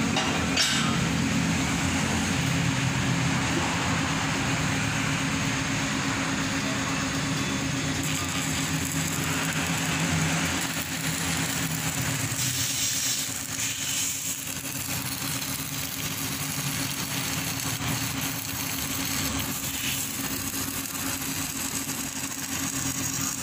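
Manual stick (arc) welding on steel beams: the electrode's arc crackles and sizzles steadily, over a steady low hum.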